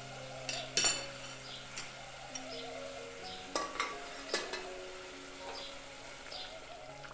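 Ridge-gourd curry simmering and sizzling in a metal pot on a gas stove. A few sharp knocks cut through, the loudest about a second in.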